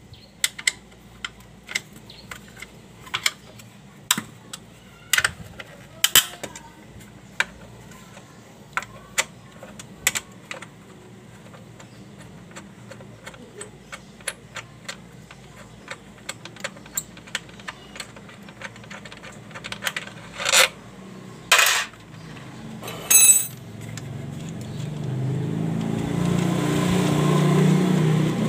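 Irregular metallic clicks and clinks of an 8 mm spanner loosening and removing the bolts on a Yamaha Mio scooter's CVT cover, with a few louder clanks a little after two-thirds of the way through. Near the end a steady engine hum comes up and grows louder.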